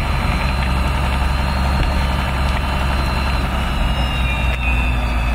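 A fire truck's engine running steadily at idle, a low hum with a thin high whine over it.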